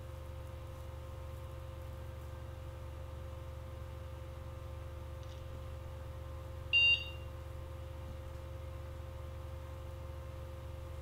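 Steady hum of a running desktop PC's fans and power supply, with one short high-pitched beep from the computer's speaker about two thirds of the way through, as the machine boots.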